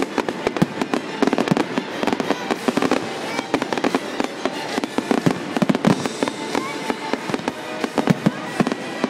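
Aerial fireworks in a finale barrage: many shells bursting in quick succession, bang after bang with no pause.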